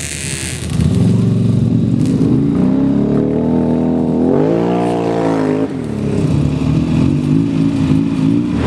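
ATV engine running, picking up about a second in, then revving up and back down once around the middle.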